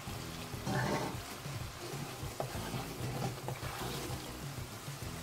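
Chicken pieces being stirred through a thick, sizzling masala in a wok with a wooden spatula, with a few light knocks of the spatula against the pan.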